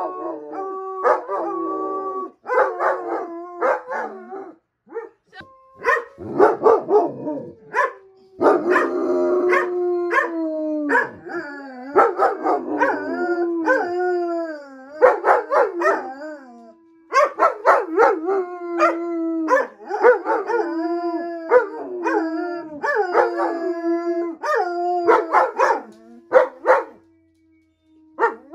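A Dutch Shepherd and a German Shepherd howling together: long, wavering, gliding howls overlapping one another, broken by short yips and barks.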